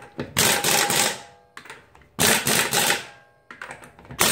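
Craftsman pneumatic impact wrench running lug nuts onto a car wheel: a rattling burst of about a second starting about half a second in, another about two seconds in, then a few short blips near the end as the nuts seat.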